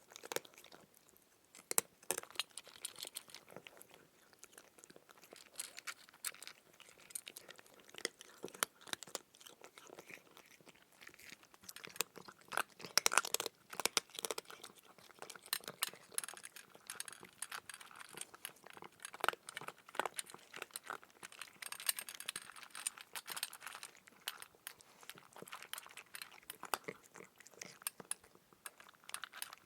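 A cat eating, chewing its food with a dense, irregular run of small crunches.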